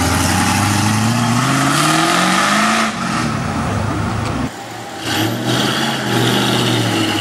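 A Dodge Coronet's V8 accelerates away, its pitch climbing steadily for about three seconds before it drops off. After a cut, another classic American V8 car runs at low revs with a steadier, lower pitch.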